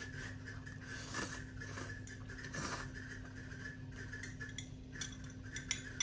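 Slurping instant ramen noodles twice, about a second in and again, a little longer, near three seconds. Light clicks of metal chopsticks follow. A steady hum runs underneath.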